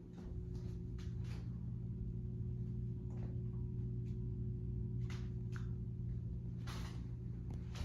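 Ceiling fan motor of a 52-inch Quorum Capri running with a steady low hum, with a few faint ticks.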